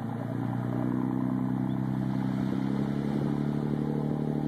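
An engine running at a steady pitch, growing louder over the first second and then holding.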